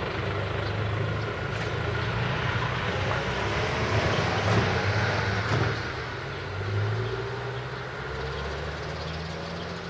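Heavy vehicle running past with a steady low hum, growing loudest about halfway through and then easing off.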